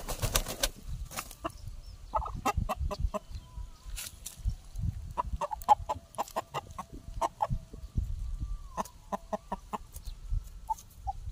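Chicken clucking in quick runs of short notes while being grabbed and held, with a burst of wing flapping in the first second and low thumps of scuffling underneath.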